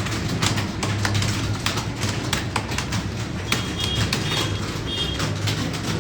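Several computer keyboards being typed on at once during a timed typing test, a dense, irregular clatter of keystrokes over a steady low hum. A few short high chirps come about halfway through.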